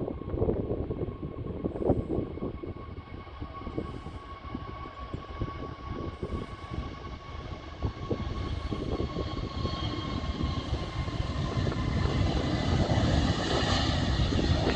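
Jet airliner engines running with a steady whine over a rumble, getting louder over the last few seconds.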